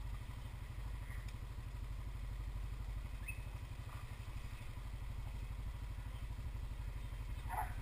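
Steady low rumble of a dog-drawn rig rolling over a gravel road, with a brief faint high whine about three seconds in.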